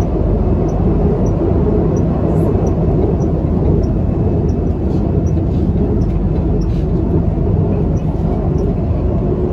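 Steady running noise inside a KTM Class 83 Hyundai Precision electric multiple unit under way: low wheel-and-track rumble with a droning hum from the running gear. Faint small ticks come about every two thirds of a second.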